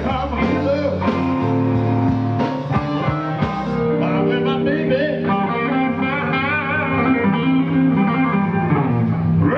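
Live blues band playing, led by electric guitar, with wavering bent lead notes over a steady low bass line.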